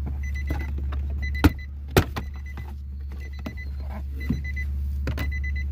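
A 2009 Nissan Armada's warning chime beeping in short, rapidly pulsing bursts about once a second, over a steady low hum. A few sharp clicks of wiring and trim being handled under the dash, the loudest about one and a half and two seconds in.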